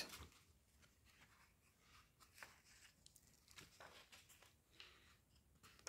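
Faint rustling of paper book pages being turned by hand, a few soft flicks and brushes spread through otherwise near-silent room tone.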